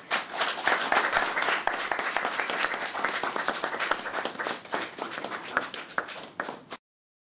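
Applause from a small group of people, dense hand claps that stop abruptly near the end; it greets the exchange of a signed agreement.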